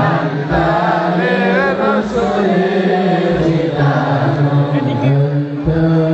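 Voices chanting a devotional Arabic salawat in long, held, wavering notes, several voices together.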